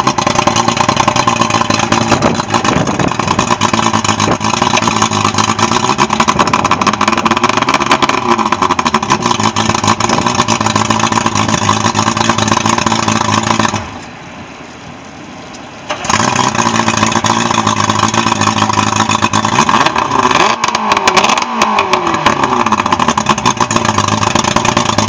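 Yamaha 130 hp two-stroke V4 outboard running on a test hose with its propeller spinning, in a test run of a newly replaced lower unit. The engine speed rises and falls a few times, and the sound drops away suddenly for about two seconds midway.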